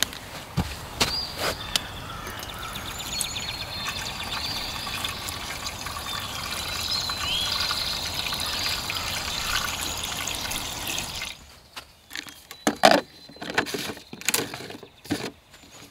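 Liquid pouring or running in a steady stream for about eleven seconds, stopping suddenly, followed by a few knocks and clicks. Birds sing throughout.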